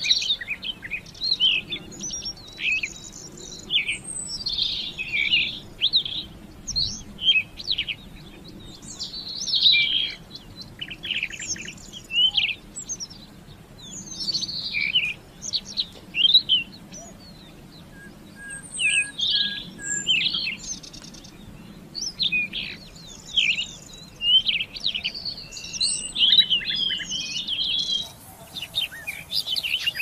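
Rufous-tailed scrub robin singing: a run of short, varied phrases of quick high notes, each followed by a brief pause. Near the end a different bird's song takes over, with a faint hiss behind it.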